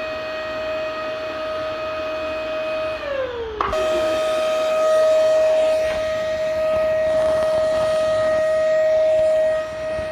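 Vacuum cleaner motor running with a steady high whine. About three seconds in the pitch slides down as if the motor is slowing, then snaps abruptly back to full speed and holds steady.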